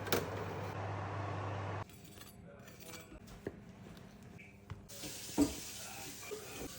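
A few light clinks and knocks of kitchenware, the loudest about five seconds in. A steady low hum runs under them and stops about two seconds in.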